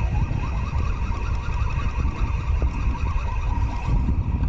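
Fly reel clicking rapidly and ringing as line is wound in during the fight with a big red drum, over the rumble of wind on the microphone.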